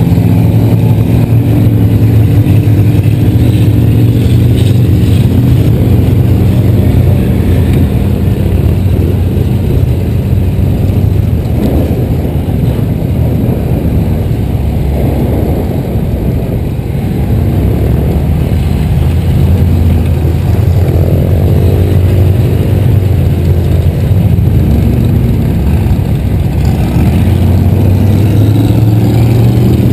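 Golf cart running steadily as it drives along a dirt track, with other engines now and then revving up and down in pitch.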